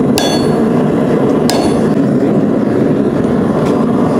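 Rounding hammer striking hot steel on the anvil while drawing out a taper: two ringing blows about a second and a half apart, then a fainter one near the end, over a steady loud background noise.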